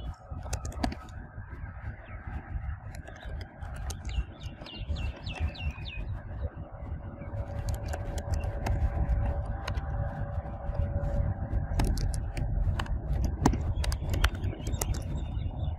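Computer keyboard keystrokes, scattered clicks as a line of code is typed, over a steady low background rumble.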